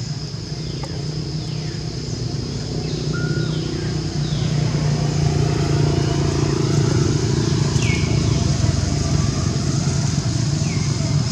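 A motor engine running steadily, growing gradually louder, with faint high chirps that fall in pitch now and then above it.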